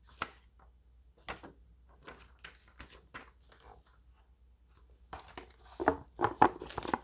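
Paper pamphlets and cardboard box contents being handled, with scattered light rustles and taps that get louder and busier about five seconds in.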